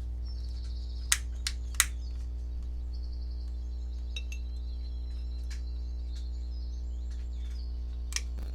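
A few sharp clicks and glass clinks, three in quick succession about a second in and one more near the end, as a candle in a glass holder is handled and lit. Faint bird chirps and a steady low drone run underneath.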